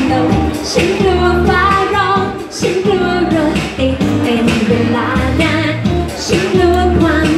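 A woman singing a Thai pop song into a microphone over backing music with a steady bass beat.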